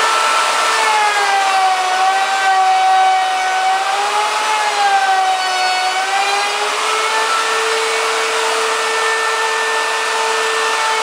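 Router in a router table spinning a rabbeting bit, cutting a step into the edge of a 3/4-inch MDF panel. It is a loud, steady whine whose pitch wavers a little as the bit takes the cut.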